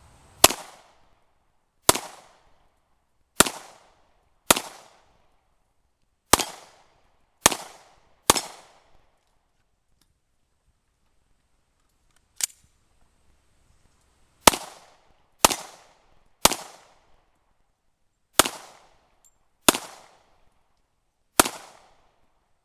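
Glock 21C compensated .45 ACP pistol firing single shots at a slow, steady pace, about thirteen in all, each crack followed by a short echo. There is a pause of about six seconds in the middle, broken by one fainter crack.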